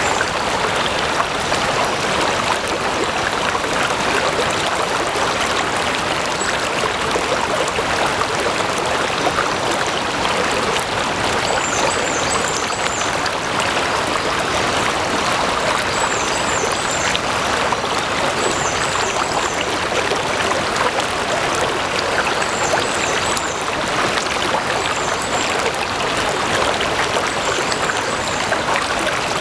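Water flowing steadily in a stream, an even rush with no pause. Short, faint high chirps come a few at a time every few seconds from about twelve seconds in.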